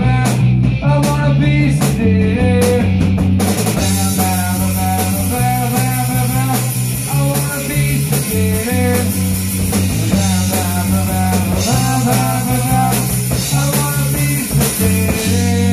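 A rock band playing live and loud, with electric guitar, a bass line, a drum kit and a singer at the microphone. The drums move from separate hits to a constant cymbal wash about three and a half seconds in.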